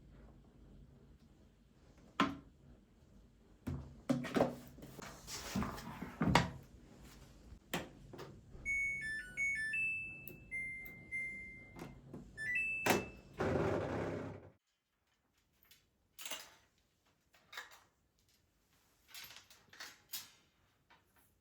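Household handling sounds: knocks and thuds, with a door or cupboard closing, and an appliance's electronic beeps, a short run of notes at a few different pitches and a held tone, a little under halfway through. A low hum cuts off suddenly about two-thirds in, after which only faint clicks and taps remain.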